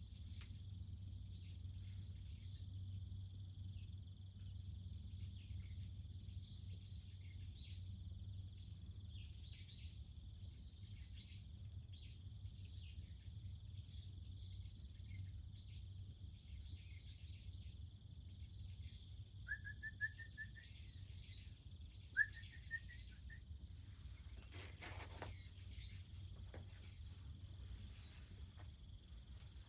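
Faint rural outdoor ambience: a steady high insect drone with scattered short bird chirps over a low steady rumble. Just past the middle come two short rising bird calls, the second the loudest sound, then a brief knock.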